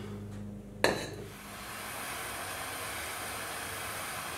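A sharp click about a second in, then a handheld blowtorch burning with a steady hiss as its flame heats a seized tie rod end to free it.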